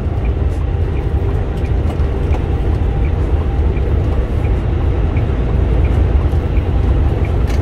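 Steady engine and road rumble heard inside a moving truck's cab at highway speed, with faint, regular small ticks over it.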